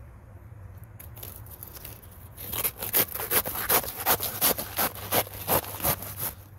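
Hand saw cutting through a red banana plant's fleshy, layered trunk (pseudostem) in back-and-forth strokes. The strokes are faint at first, then grow loud about two and a half seconds in, running at roughly three a second before stopping near the end.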